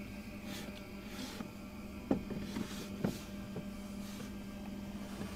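Wooden boards being handled inside a laser engraver's cabinet: a few light knocks of wood about two seconds in and some sliding rubs, over a steady low machine hum.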